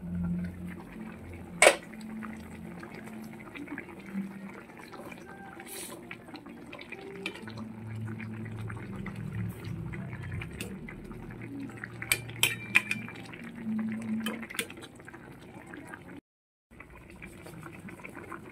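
A stainless steel pot of fish and greens soup simmering, liquid bubbling, with a few sharp metallic clinks of a ladle against the pot, one about two seconds in and a cluster after twelve seconds.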